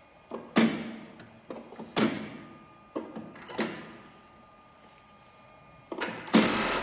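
Sakura-Stitch S-438D-737S button sewing machine's air-driven auto button feeder and clamp working: three pairs of sharp clacks, each trailing off in a short hiss. About six seconds in, the machine starts running.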